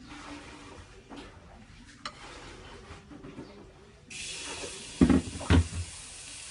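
Pancake batter frying in a hot pan: a steady sizzle starts suddenly about four seconds in and keeps going. Two loud knocks come about a second later, with faint clicks of handling before the sizzle begins.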